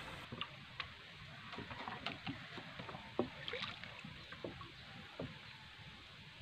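Faint sounds of a small outrigger boat on calm water: gentle water lapping with scattered light knocks and clicks, a few each second or two.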